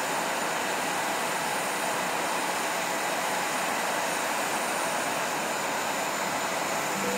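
Steady jet aircraft engine noise on an airport apron, an even rushing sound with a faint high whine over it.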